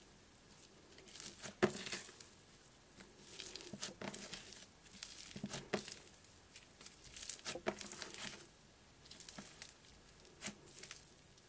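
Butter slime (slime mixed with soft clay) being kneaded, folded and stretched by hand, making soft sticky clicks and pops in bursts every couple of seconds with short pauses between.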